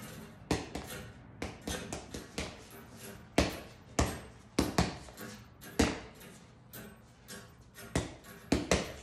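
Boxing gloves punching the ball of a Title Shot Sports Reflex Stick: irregular sharp smacks thrown in quick combinations, some in fast pairs, as the ball springs back on its rod.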